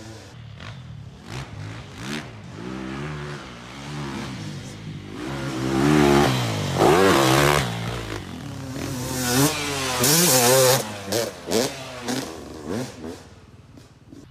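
Dirt bike engine revving up and easing off again and again, its pitch rising and falling. It grows louder as the bike comes up the track, is loudest around the middle, then fades as the bike moves off.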